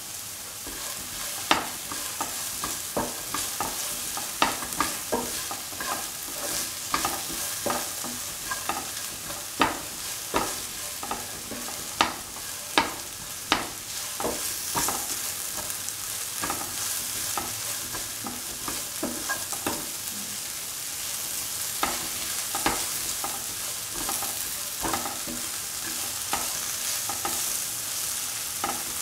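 Chopped okra and green chilies sizzling as they sauté in a pan, with a spatula scraping and knocking against the pan at irregular moments as it stirs them.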